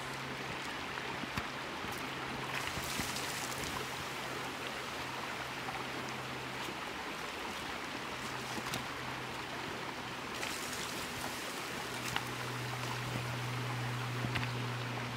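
Creek water running steadily, with a few faint crackles from the campfire's dying coals. A low steady hum sits underneath, dropping out about halfway and coming back louder near the end.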